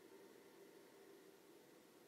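Near silence: a faint, long, slow breath of a person sitting in a yoga breathing exercise.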